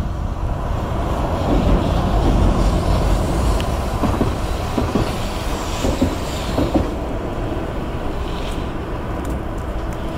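A Hankai Line tram passing close by, its wheels rumbling on the rails, with a few short clacks over the rail joints midway, then easing off as it moves away.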